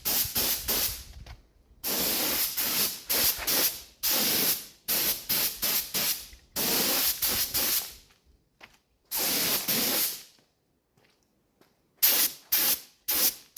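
Paint spray gun hissing in repeated trigger bursts, some a second or two long and some short, with silent gaps between them as paint is laid on.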